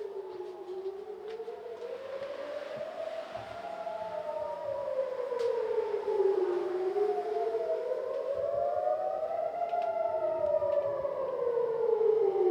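Civil-defence air-raid siren sounding a drill alert, its wailing tone rising and falling slowly, about one rise and fall every six seconds. More than one siren is heard at once, slightly out of step.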